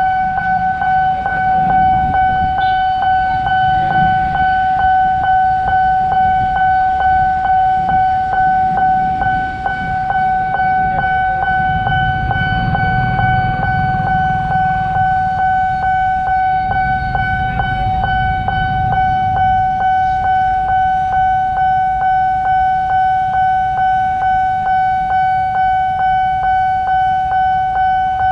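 Electronic railway level-crossing alarm ringing: one steady high tone that pulses evenly, the warning that a train is approaching the crossing. The low rumble of road traffic rises and falls beneath it.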